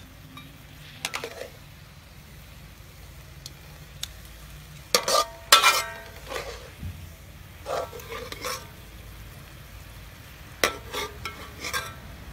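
Metal ladle scraping and knocking against a steel wok several times, loudest about five seconds in, over a faint sizzle of oil frying in the pan.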